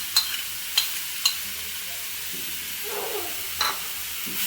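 Grated beetroot sizzling as it fries in hot ghee in a pan while being stirred. A utensil clinks sharply against the pan three times in the first second and a half, and once more later.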